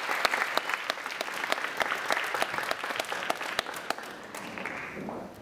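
Audience applauding, many hands clapping irregularly, the clapping thinning and fading out toward the end.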